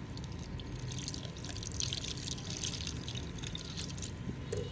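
Liquid poured from a plastic bottle into a plastic cup, splashing for about three seconds, over a steady low hum.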